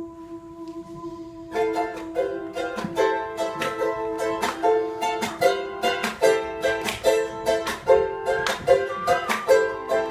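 Ukulele strummed in a steady rhythm of chords, starting about a second and a half in, over a single steady held note that sounds throughout.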